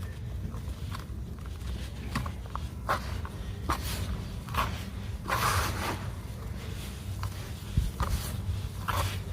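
Sand-cement and sawdust crumbles being crushed by hand: a string of short, irregular gritty crunches, the longest about five seconds in, over a steady low hum.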